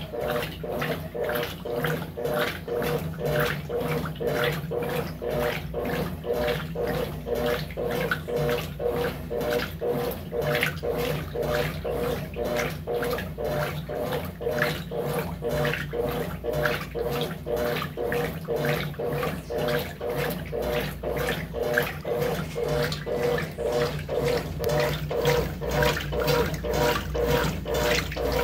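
Brastemp BWT12 top-loading washing machine agitating a full load in water. The water and clothes slosh in a rapid, even rhythm of about three strokes a second over a steady motor hum.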